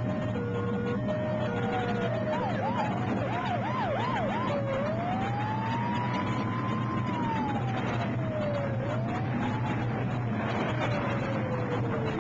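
Emergency-vehicle siren: a two-tone hi-lo alternation, then a quick yelp for about two seconds, then a slow wail rising and falling, over a steady low hum and hiss.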